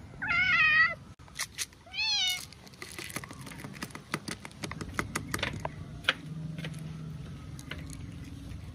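A cat meows twice, a long wavering meow right at the start and a shorter one about two seconds in. Then come many quick, irregular clicks and crunches of dry kibble as the cats eat.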